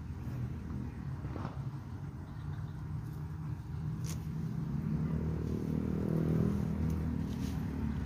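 Low engine rumble of a motor vehicle, growing louder about five seconds in and peaking around six seconds in. A single sharp click about four seconds in.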